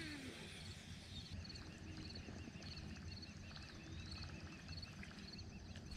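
Faint outdoor ambience: small chirps like distant birds, with a faint rapid ticking for a few seconds in the middle.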